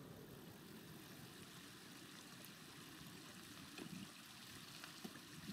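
Near silence: faint outdoor background hiss, with a couple of faint ticks.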